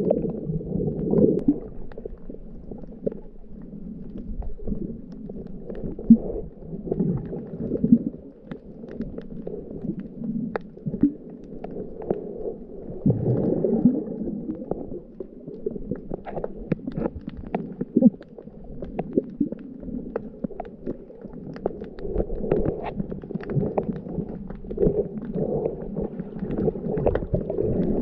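Muffled underwater sound: water moving and churning around the camera, swelling and easing unevenly, with faint scattered clicks and crackles throughout.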